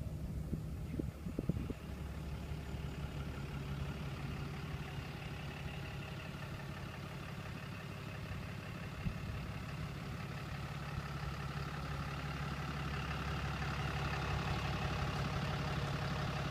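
Cummins turbo diesel of a Ram 5500 truck idling steadily, growing a little louder toward the end as the front of the truck comes closer. A few light knocks sound about a second in.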